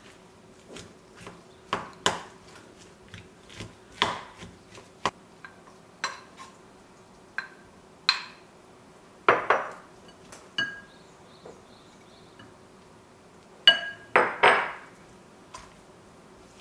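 A spoon knocking and scraping in a glass mixing bowl while boiled potatoes are mashed, a string of separate taps with a few louder glass clinks that ring briefly, the loudest about nine seconds in and two near the end.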